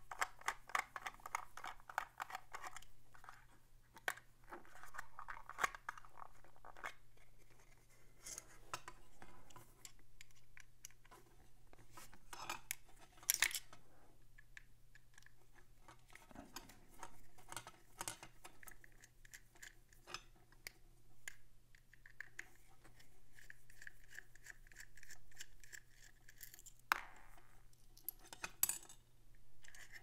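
Precision screwdriver backing screws out of a smart lock's housing: faint metal-on-metal scraping and many light clicks and ticks as the tool works in the screw heads and the lock is handled, with two sharper clicks near the end.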